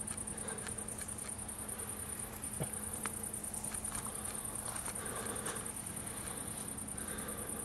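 Night insects, crickets, trilling steadily: a high-pitched, finely pulsed buzz that breaks briefly once. Underneath it are a faint low hum and a few faint clicks.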